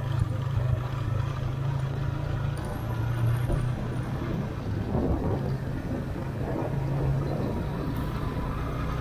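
Motorcycle engine running steadily while riding along, a continuous low hum with road noise.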